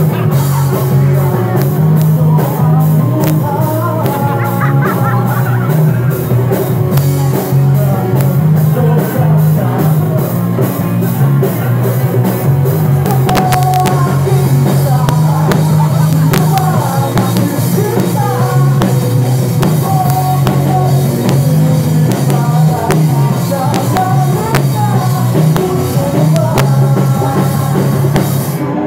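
Live rock band playing loud: electric guitars over drums, with a singer. A steady cymbal tick runs through the first half and thins out about halfway.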